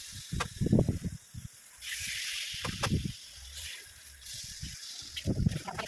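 Pork belly sizzling on a hot grill as pieces are laid on with tongs: three spells of hissing, each about a second long. Wind gusts on the microphone give low rumbles in between.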